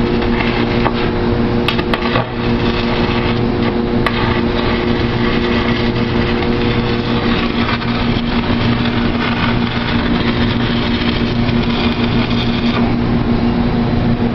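Electric stick (arc) welding on steel angle: a steady crackle and sizzle from the arc over the welding machine's constant electrical hum.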